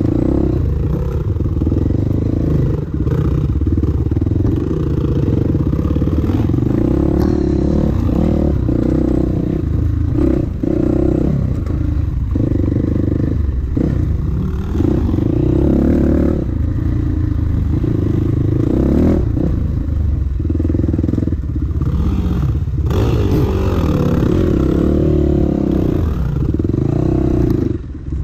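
Dirt bike engine heard from on board while riding rough singletrack, revving up and easing off every second or two as the throttle is worked over the terrain.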